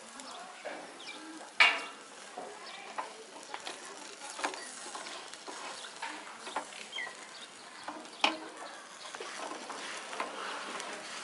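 Chicken skewers sizzling on a grill over hot embers, with frequent small crackles and pops. Two sharper, louder clicks stand out, one about one and a half seconds in and one about eight seconds in.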